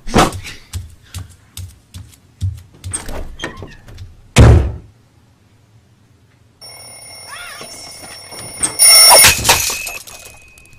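Cartoon sound effects: a quick run of knocks and thuds ending in one loud thump, then, after about two seconds of quiet, an alarm clock starts ringing with steady high tones and gets much louder about nine seconds in.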